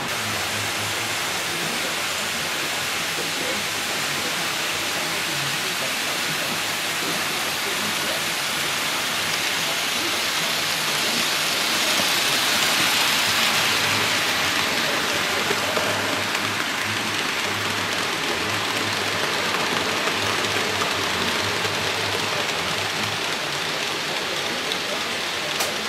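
Model railway freight wagons rolling along the track, a steady dense rattle of small wheels on metal rails that swells briefly about halfway through as the train passes closest.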